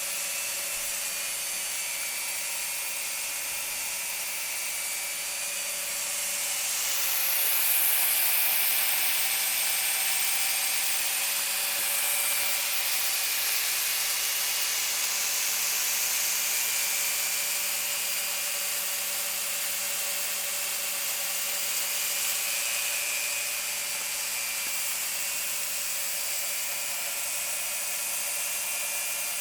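Emesco 107NH antique electric dental drill running: a steady mechanical hum with several held tones. It swells about seven seconds in, then eases back gradually.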